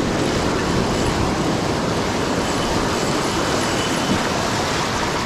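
Steady rushing noise of surf washing around the fisherman's legs, with wind buffeting the microphone.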